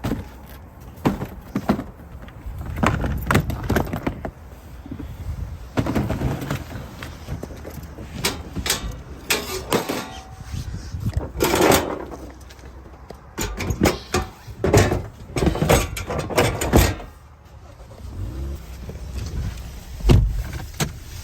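Empty plastic storage totes knocking and clattering as they are loaded into a vehicle: a run of irregular sharp knocks, with a heavy low thump near the end.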